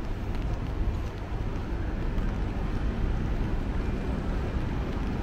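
Steady city street noise, mostly the low rumble of passing traffic, with a few faint clicks.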